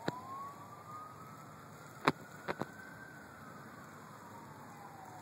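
Emergency-vehicle siren wailing, its pitch rising slowly over a few seconds and then falling and rising again, with a few sharp clicks, the loudest about two seconds in.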